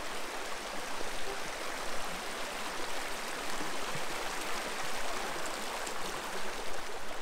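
Shallow, rocky mountain stream running steadily beneath a log footbridge, an even rush of water over stones.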